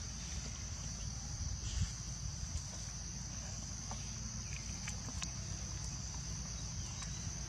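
A steady, high-pitched drone of insects, with a low rumble underneath and a few faint ticks.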